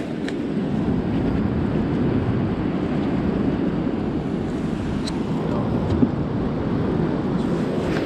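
Steady rush of fast, turbulent river water below a weir, mixed with wind on the microphone, with one short click about six seconds in.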